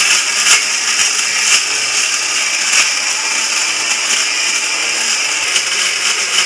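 Butterfly electric mixer grinder running steadily, its steel jar grinding coconut, onion and spice powders with water into a wet masala paste.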